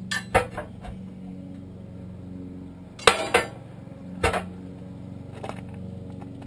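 Steel tire irons clanking against a tractor's steel wheel rim while prying a rear tire's bead over it: a few sharp metallic clanks, the loudest about three seconds in. A steady low hum runs underneath.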